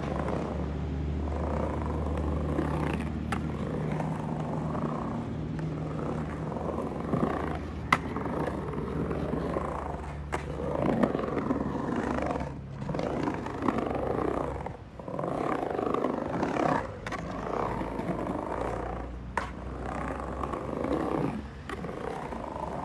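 Skateboard wheels rolling on a concrete ramp, the rumble swelling and fading as the rider goes up and down the transitions. A few sharp clacks of the board cut through, the loudest about eight seconds in.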